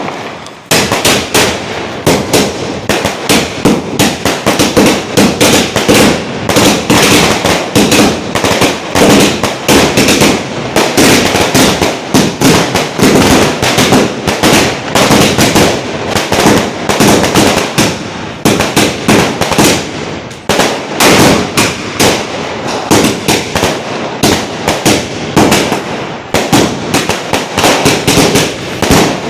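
Mercury Sky Warrior 200-shot sky shot firework cake firing nonstop: a rapid, unbroken string of shots and aerial bursts, several a second.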